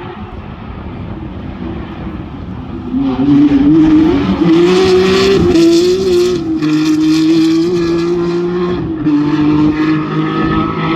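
Rally car engine running at high revs, growing much louder about three seconds in as the car comes close, with a few brief breaks in the engine note.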